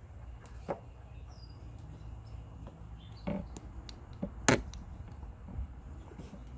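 Car door window being run up and down to test a newly fitted window regulator: a few soft knocks and one sharp click about four and a half seconds in, over a steady low hum.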